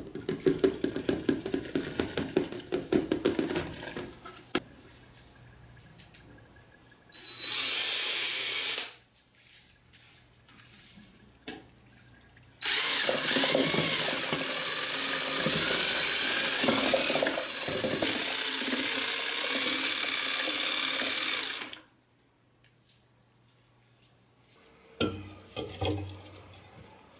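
Casting plaster (investment) powder hissing and crackling as it is poured into a plastic measuring jug. A power drill with a long mixing rod then whirs in the slurry in a short burst and a longer run of about nine seconds, stirring it to a slightly thick mix. A few knocks near the end as the jug is set into a steel pot.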